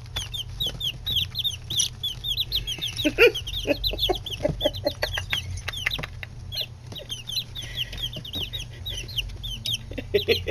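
A brood of nine-day-old chicks peeping constantly: many rapid, high, falling cheeps overlapping, with scattered sharp taps in the middle as they scramble after one another.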